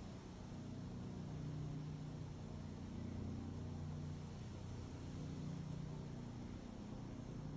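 Aérospatiale AS365 Dauphin twin-turbine helicopter flying overhead at a distance: a steady low drone of rotor and engines.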